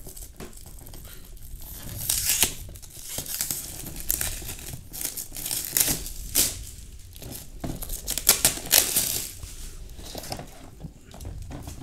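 Clear plastic shrink wrap being torn and peeled off a cardboard firecracker box, crinkling in irregular bursts.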